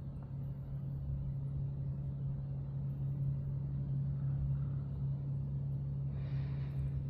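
A steady low mechanical hum with a rumble beneath it. About six seconds in, a brief soft hiss is heard over it.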